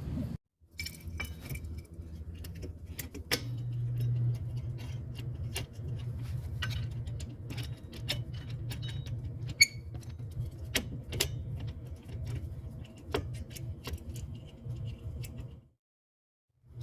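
Scattered metallic clicks and clinks of drum-brake hardware being handled, over a steady low hum. The sound cuts out briefly near the start and again just before the end.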